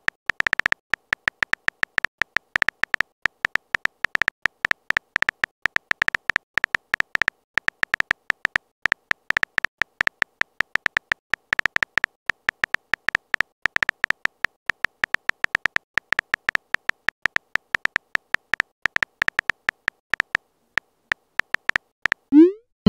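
Texting app's keyboard sound effect: rapid, irregular short beeping taps, one per typed letter. Near the end comes a short rising swoop, the message-sent sound.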